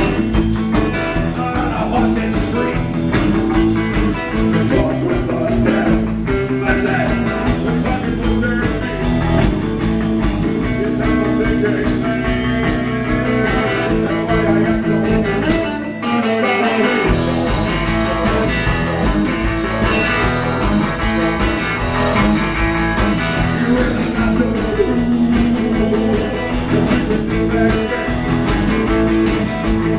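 Live rock band playing a song with electric guitar, bass and drums. The bass drops out for about a second just past the middle, then the full band comes back in.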